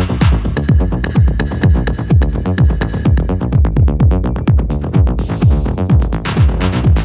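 Electronic dance music with a steady four-on-the-floor kick drum at about two beats a second under fast hi-hats, and a brief hissing swell about five seconds in.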